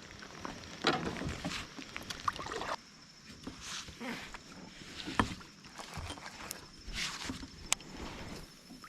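Scattered knocks, clicks and short swishing noises of someone moving about and handling gear in a kayak on the water, with one sharper click near the end.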